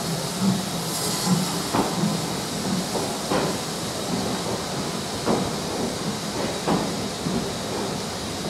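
Steam-hauled train of Royal Mail coaches rolling past, its wheels knocking over rail joints a few times, one to two seconds apart, over a steady hiss of escaping steam.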